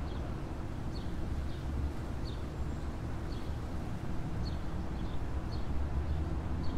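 Outdoor ambience: a steady low rumble, with faint light ticks every half second to a second.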